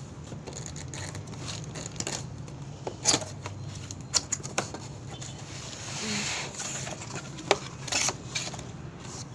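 Scattered clicks and taps of small objects being handled and set down, with a short rustle about six seconds in, over a low steady hum.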